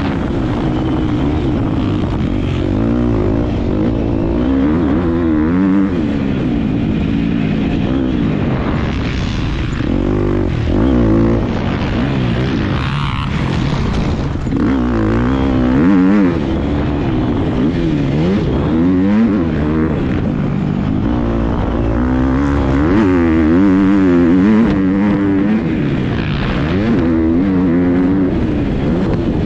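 Motocross dirt bike engine under hard riding, its pitch climbing and dropping over and over as the rider accelerates, shifts and backs off around the track, heard close up from the bike.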